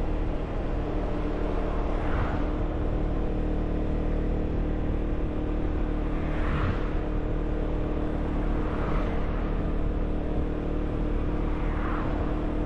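Car engine and tyre noise heard from inside the car as it climbs a mountain road: a steady low hum and rumble. Four brief whooshes come a few seconds apart over it.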